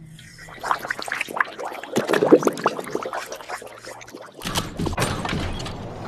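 A quick, irregular series of cracking, clattering impacts, like something breaking or shattering. About four and a half seconds in, a dense rushing noise takes over.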